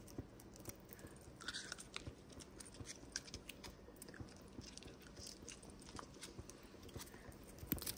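Pot of beef-bone pho broth simmering: faint, continuous small pops and crackles of bubbles breaking at the surface.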